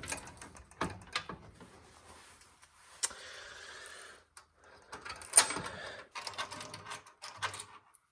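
Rummaging and handling noises while a key is fetched: scattered clicks and knocks, with a steady rustling slide about a second and a half long near the middle and a sharp click about five and a half seconds in.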